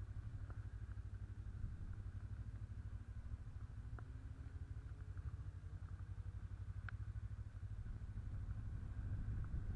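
Honda CB500's parallel-twin engine running at low revs while the motorcycle rides slowly, a steady low rumble picked up by a camera mounted on the bike. A couple of light clicks sound about four and seven seconds in.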